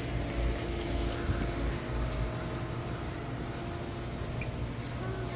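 Insect chorus, a steady high-pitched pulsing trill, with wind rumbling on the microphone in the first couple of seconds.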